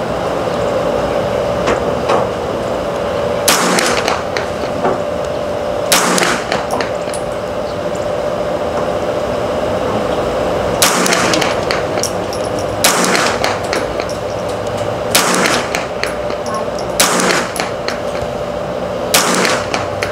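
Ruger 10/22 .22 rimfire semi-automatic rifle firing single shots, about seven sharp cracks spaced roughly two seconds apart with a longer pause after the second, and fainter cracks between them. A steady hum runs underneath.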